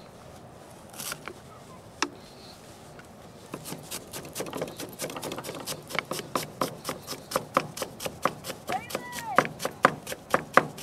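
Chef's knife chopping fresh cilantro on a plastic cutting board: a few scattered taps at first, then from about three and a half seconds in a quick run of chopping strokes, about four or five a second.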